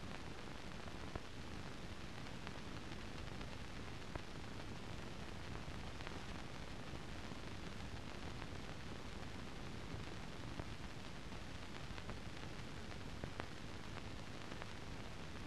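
Steady hiss with a few faint scattered clicks: the background noise of a silent film transfer, with no soundtrack of its own.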